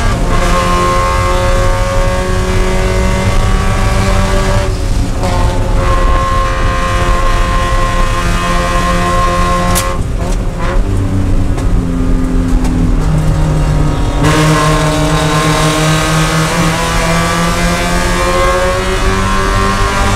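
Mazda Miata race car's four-cylinder engine heard from inside the cockpit, held at high revs. There is a brief break about five seconds in, then the engine eases off to lower revs around ten seconds in before climbing steadily again under throttle.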